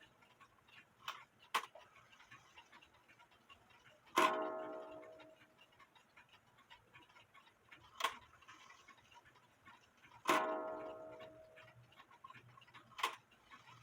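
Late-1800s German wooden-plate wall clock striking: two single ringing blows about six seconds apart, each fading away over a second or so, with a few sharp clicks from the movement between them. It strikes only once each time.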